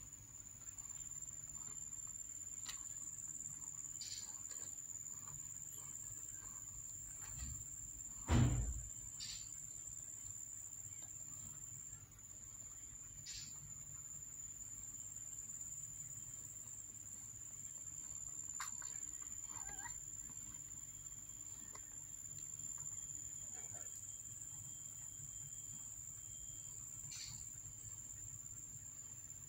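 A steady high-pitched whine, like insects chirring, over a low hum, with faint scattered rustles and clicks and a single thump about eight seconds in.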